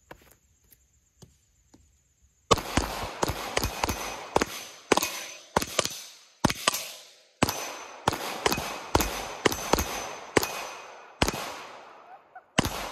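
Two Glock 19 9mm pistols fired rapidly by two shooters, about twenty shots over ten seconds in uneven, overlapping strings. The shooting starts about two and a half seconds in, and the last two shots come near the end.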